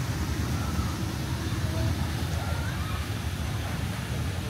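Steady outdoor city background: a low rumble of distant road traffic, with no distinct event standing out.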